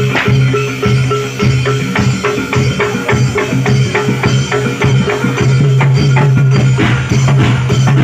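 Live reog and jaranan ensemble music: drums and other hand percussion keep a fast, even beat over a steady low tone.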